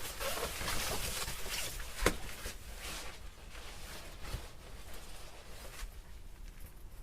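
Rustling and handling noises of tent and tarp gear being pitched, with scattered clicks and one sharp click about two seconds in, growing quieter toward the end.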